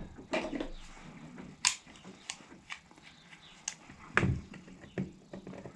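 Hand tools clinking and knocking as they are rummaged through and a pair of locking pliers is picked out of a toolbox drawer: a scatter of short, sharp clicks, the loudest about four seconds in.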